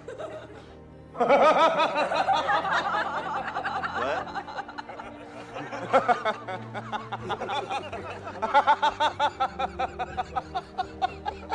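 Men laughing heartily in quick repeated bursts, starting about a second in, over a steady background music track.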